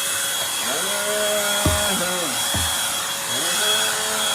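Eureka Blaze NES210 corded stick vacuum, used as a handheld, running with a steady high motor whine and rushing air. The lower tone of the suction rises and falls as the nozzle works along the steps, with two low thumps about a second and a half and two and a half seconds in as it knocks against a step.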